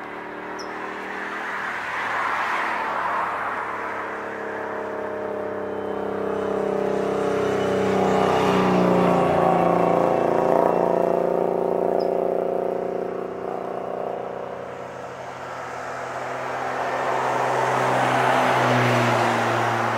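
Motor vehicle noise: a steady engine hum that swells louder and fades three times as traffic passes, loudest in the middle.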